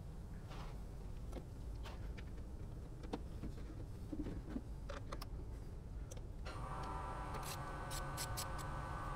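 Scattered light clicks and taps of hand tools on the plastic headlight housing and its mounts, over a low steady rumble. About two-thirds of the way in, a steady mid-pitched whine comes in and holds.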